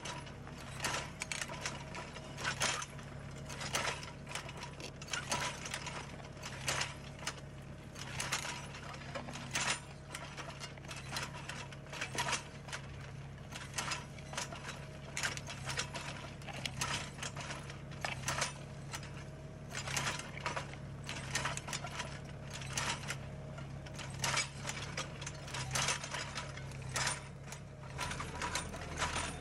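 A tractor engine running steadily while a tractor-mounted sensor-arm vineyard hoe with a three-disc attachment cuts through the soil, its discs and frame giving a constant irregular clatter of clicks and knocks.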